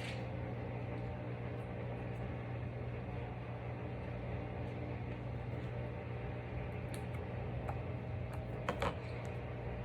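Steady low hum, like a fan or appliance running, with a few faint short clicks near the end.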